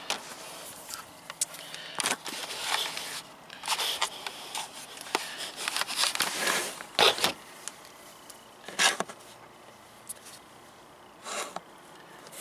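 Handling noise: scattered clicks, rubs and scrapes as a digital multimeter and its test leads are picked up, balanced and set down, with knocks from the camera being moved. A few louder knocks stand out in the second half.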